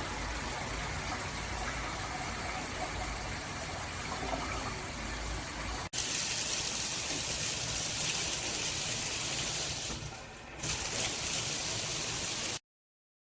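Water spraying from a PWERAN filtered handheld shower head, a steady hiss. About halfway through it cuts to a louder, brighter spray, which falters briefly and then stops abruptly shortly before the end.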